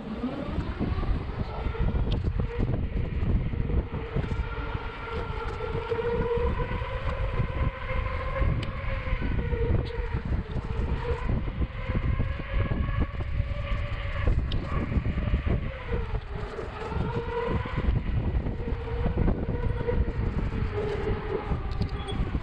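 Lectric e-bike's electric motor whining, rising in pitch as the bike speeds up at the start and then holding a fairly steady pitch with slight wavers, over low wind rumble on the microphone.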